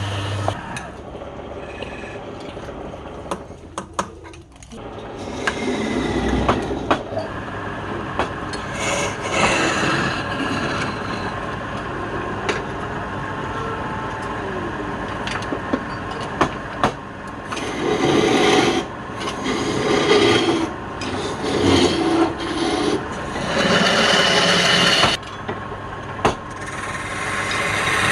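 Wood being worked on a wood lathe: a tool scraping and cutting the spinning wood in uneven passes, louder from about two-thirds of the way in, with a few sharp clicks and the lathe's steady running underneath.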